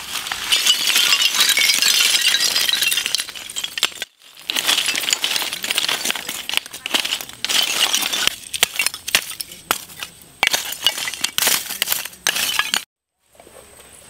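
Lumps of charcoal pouring out of a jute sack onto the ground in a continuous clattering rush, with a glassy clinking. After a brief break, charcoal lumps clink and knock against one another in separate sharp clicks as they are pushed about and spread with metal tongs.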